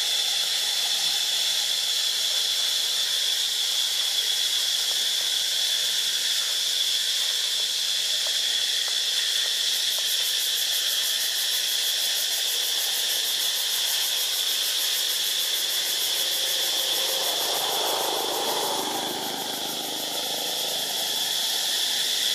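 Steady high-pitched drone of insects in the trees, with a fast even pulsing joining in about halfway through. A softer, lower sound swells briefly near the end.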